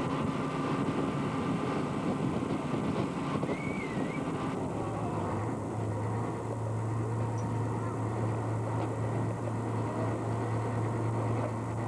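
A boat's engine running with a steady low hum that sets in strongly about five seconds in, under an even rushing of wind and sea on the open deck.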